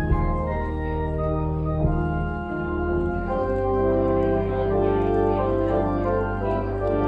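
Church organ playing a postlude after the dismissal: sustained chords over long-held bass notes, changing every second or so. Two brief knocks sound right at the start.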